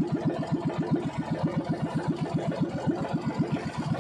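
The small petrol engine of an outrigger fishing boat running steadily under way, an even fast chugging of about nine beats a second.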